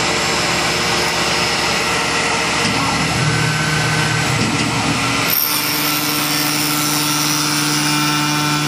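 Tormach PCNC 1100 CNC mill's spindle driving an end mill through a metal part: loud, steady machining noise with some vibration, which the operator judges nothing special. About five seconds in the sound changes and a steady low hum sets in and holds.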